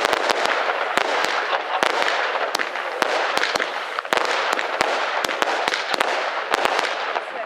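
Fireworks going off: a dense, continuous crackle with sharp cracks at irregular intervals, several a second.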